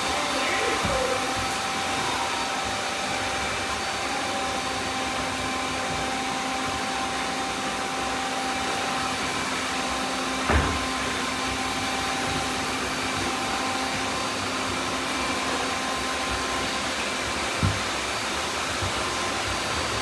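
Many robot vacuums running at once: a steady whirring hiss with several thin steady whines layered through it. Two brief knocks stand out, one about halfway through and one near the end.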